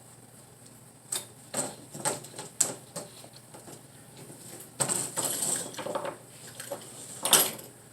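Razor knife cutting away excess window screen mesh along the frame: a run of short scratchy cuts and clicks, a longer rasping stretch about five seconds in, and one sharp knock near the end.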